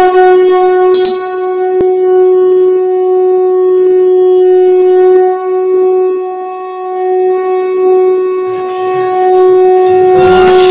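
Conch shell (shankh) blown in one long, steady note held at a single pitch for about ten seconds, at a Hindu ritual. Near the end, noisier sound from a gathered crowd comes in underneath it.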